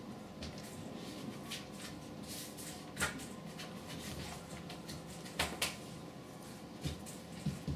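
A Sphynx kitten's paws tapping and pattering against window glass: a few separate sharp taps, one about three seconds in, two close together around five and a half seconds, and a couple more near the end, over a faint steady room hum.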